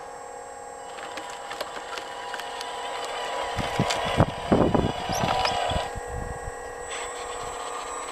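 Radio-controlled Liebherr 946 hydraulic excavator model running, its hydraulic pump and motor giving a steady whine that grows louder as the machine crawls closer. Around the middle come low thumps and crunching as its tracks climb over the dirt mound close by.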